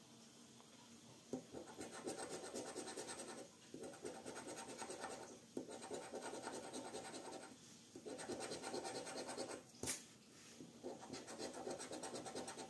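A coin scraping the silver coating off a Millionnaire scratch card in quick strokes, in spells of about two seconds with short pauses between them.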